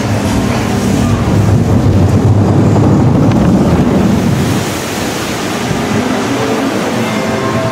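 Dark-ride boat moving through its water channel, with loud, steady rushing and churning of water that eases after about four and a half seconds. Ride music starts to come through near the end.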